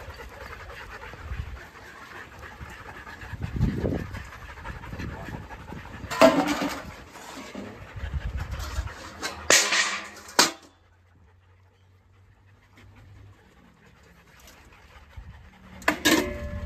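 Several dogs panting close by as they mill around, with a few short, sharp louder sounds about six and ten seconds in; after that it drops to near silence for several seconds before another sharp sound near the end.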